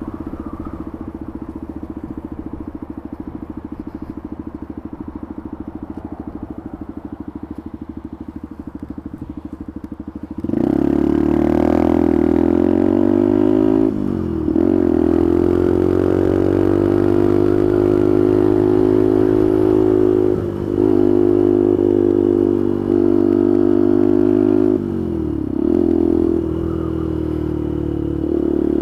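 Small motorcycle engine heard from the rider's seat, humming steadily for about ten seconds, then getting clearly louder as the throttle opens. Its revs then dip and climb again several times.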